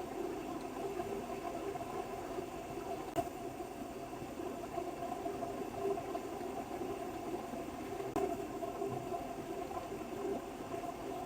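Steady drone of a shop heater running, with a couple of faint clicks, about three seconds in and again about eight seconds in.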